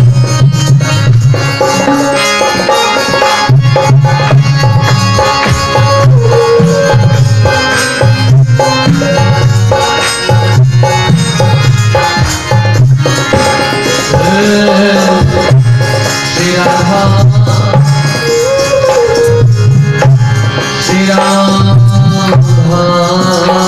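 Harmonium and dholak playing a devotional kirtan tune: the harmonium holds steady reed chords over a continuous hand-drum beat.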